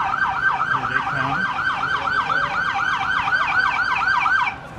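Police car siren on a fast yelp, rising and falling about four times a second, then cutting off suddenly near the end.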